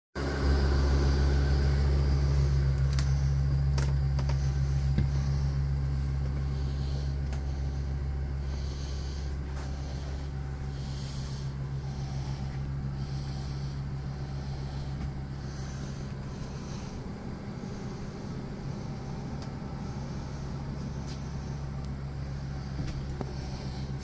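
A steady low mechanical hum, loudest at the start and easing off gradually over the first half or so.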